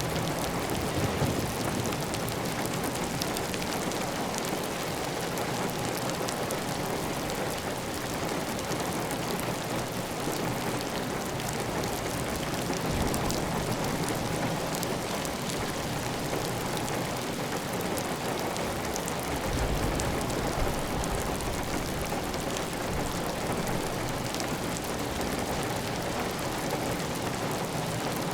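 Heavy rain falling steadily on a clay tile roof, a dense even patter with water running off the roof edge. A brief low rumble swells in about two-thirds of the way through.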